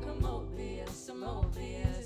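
Live band playing: a woman singing over synth, electric bass and drum kit, with a few kick drum thuds under the held sung notes.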